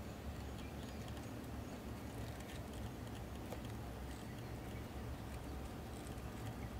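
Faint scattered ticks and rustles of a black scarab beetle crawling over dry leaves and grass stems, over a steady low rumble.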